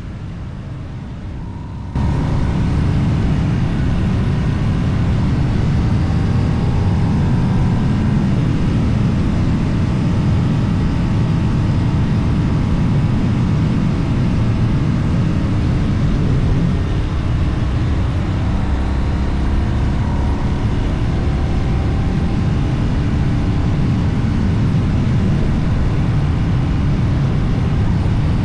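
Boxer engine humming at steady road speed under a heavy rush of wind, a dense low drone with faint wavering engine tones above it. The sound jumps louder about two seconds in and then holds steady.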